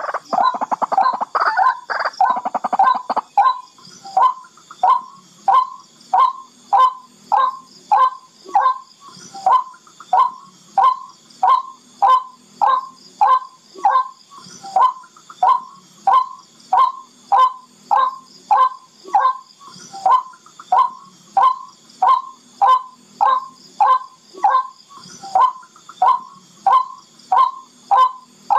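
Barred rail (tikling) calling: about three seconds of rapid, overlapping chattering calls, then a steady, even series of short sharp calls, a little under two a second.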